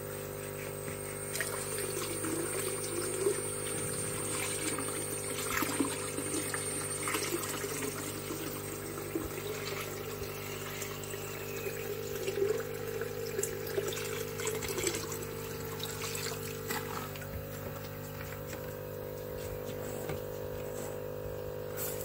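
Water pouring and trickling from a plastic basin into a tank, with small irregular splashes, over a steady low hum.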